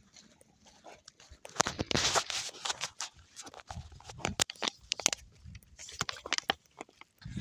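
Dogs snuffling and breathing close by, mixed with irregular crunching steps on a gravel track, busiest and loudest about one and a half to two and a half seconds in.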